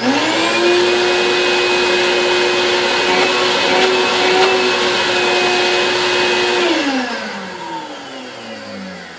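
Ridgid 12-gallon wet/dry shop vac motor switched on, spinning up within a fraction of a second to a steady whine with a rush of air, pulling good suction. About seven seconds in it cuts out and winds down, its pitch sliding steadily lower.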